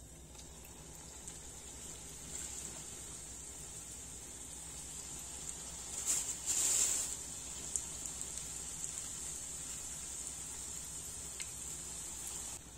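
Dough pies frying in hot vegetable oil in a pan: a steady sizzle that builds over the first couple of seconds, flaring louder for about a second around six seconds in.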